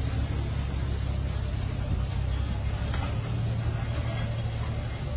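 Truck engine idling with a low, steady rumble.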